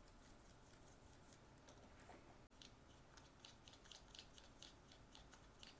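Near silence with faint, scattered light ticks and scrapes of paintbrushes dabbing and mixing paint, more frequent in the second half.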